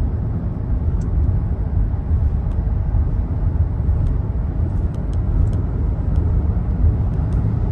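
Steady low rumble of road and engine noise heard from inside a moving vehicle, with a few faint ticks.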